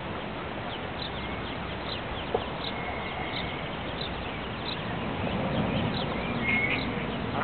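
A brood of ducklings peeping: many short, high, downward-sliding cheeps, several a second. A single sharp click about two seconds in.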